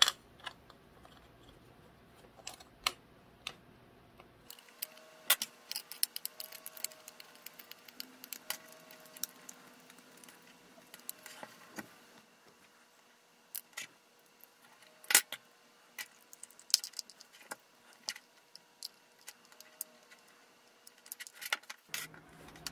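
Scattered clicks and knocks of small plastic parts handled by hand: the circuit board of a Britz 2.1 speaker's wired volume control being fitted back into its round plastic housing after its volume potentiometer was greased.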